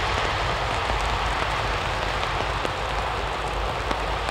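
Steady rushing hiss of rain mixed with the jet roar of a Boeing 777-200ER rolling out on a wet runway after landing, easing slightly as it moves away.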